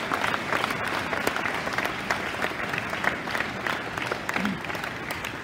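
Audience applauding, many hands clapping at once, slowly dying down toward the end.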